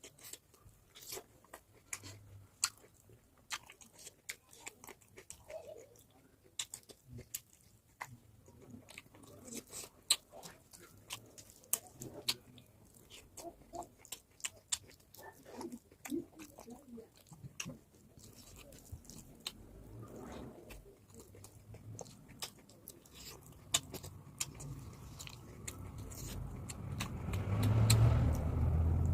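A person chewing and biting food close to the microphone, with many small, irregular crunchy clicks. A low rumble swells over the last few seconds and is loudest near the end.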